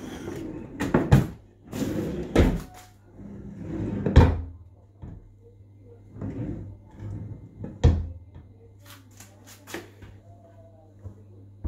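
Kitchen cabinet drawers and cupboard doors being opened and shut: a series of clunks and knocks, loudest about a second in, around four seconds and near eight seconds, then a quick run of small clicks near the end. A faint steady low hum lies underneath.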